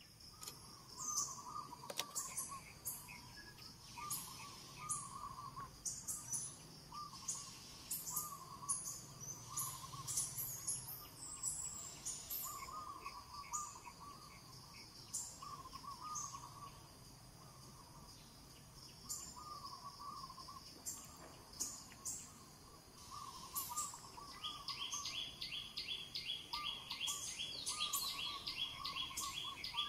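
Birds calling and chirping. A short call repeats about every second and a half over scattered high chirps, and near the end a quick, even run of chirps starts up.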